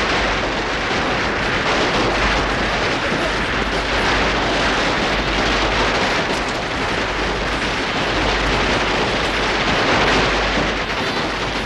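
A long string of Chinese firecrackers going off in a dense, continuous crackle.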